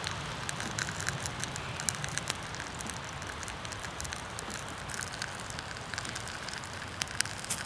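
Bed of hot campfire embers crackling, with many small sharp pops and ticks over a soft steady hiss, as pine sap warms in a birch bark cup set among them.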